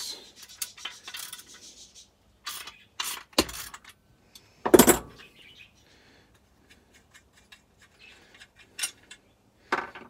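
Steel fittings of a crankshaft installation tool clinking and knocking as the tool is taken off a chainsaw crankcase, with one loud clunk about five seconds in.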